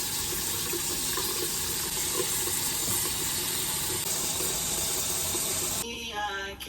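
Steady rush of running water. Near the end it stops and music with singing comes in.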